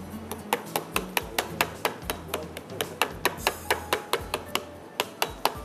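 A fork pricking thin pizza dough in a metal pizza pan, its tines tapping through the dough onto the pan in quick, even taps, about four or five a second. This is the crust being docked before it is blind-baked.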